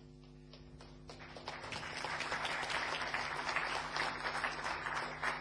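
Audience applauding to welcome a speaker just introduced, the clapping starting about a second in and swelling.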